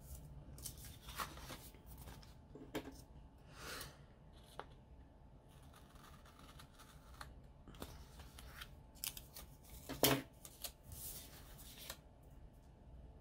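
Scissors snipping a paper watercolour sticker piece, a series of short snips with paper rustling and handling between them; the loudest snip comes about ten seconds in.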